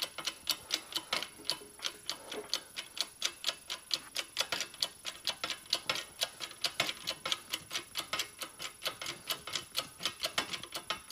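Pump of a 20-ton hydraulic shop press ticking rapidly and evenly, about five clicks a second, as the ram is run down onto the work.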